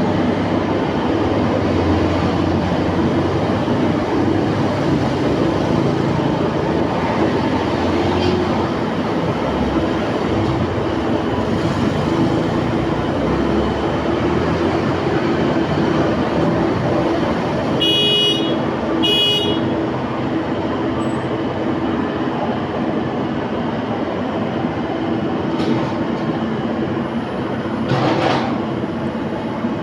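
Excavator's diesel engine running steadily under load. A little past the middle come two short, high beeps about a second apart.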